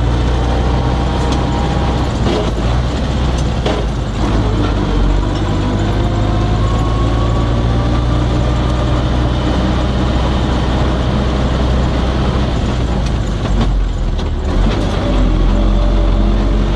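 Cab-interior sound of an MTZ-80 tractor's four-cylinder diesel running under heavy load while pulling two loaded grain trailers, with a steady low drone, a wavering whine and scattered rattles and knocks. About fourteen seconds in, the engine sound dips briefly and then comes back stronger.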